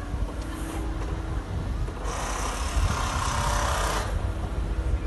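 Ford Mustang rolling slowly over brick pavement: a low rumble from the car, with a steady hiss for about two seconds midway that cuts off suddenly.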